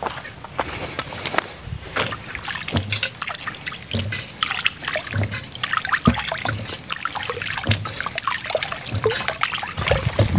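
Footsteps wading through shallow, duckweed-covered water, each step sloshing and splashing, about once a second.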